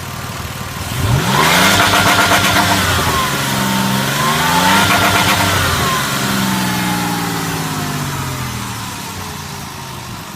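2002 Ford Escape's 3.0-litre V6 revving hard under full throttle about a second in, then running rough with a rapid crackling stutter while its pitch sags and climbs again, before it slowly winds down. This is the fault the owner describes at 3,500–4,000 rpm under load: it sounds like excess pressure venting from the engine, with a sharp loss of power.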